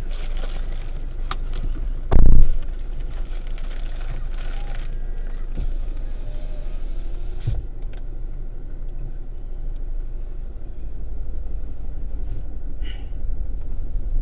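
Inside a car: rustling and clicks as a passenger settles into the front seat, a loud thump of the passenger door being shut about two seconds in, then the steady low rumble of the car running.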